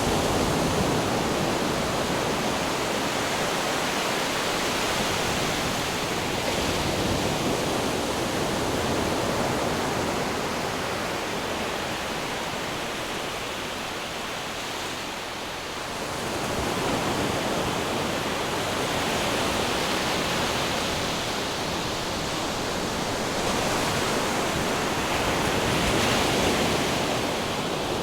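Ocean surf and wind: a dense, steady rush of breaking waves that slowly swells and eases, dipping about halfway through before building again.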